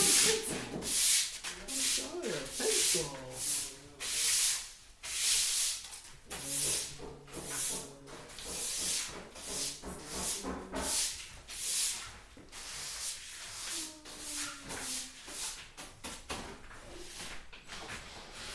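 Broom sweeping a paper-covered floor: a run of brushing strokes, about two a second, growing fainter over the last few seconds.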